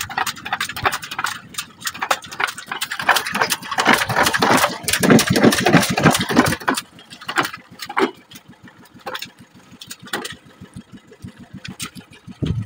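A freshly caught dorado (mahi-mahi) thrashing in a boat's wooden fish hold, its body and tail rapidly knocking and slapping against the planks. The knocking is dense for about the first seven seconds, then slows to scattered knocks.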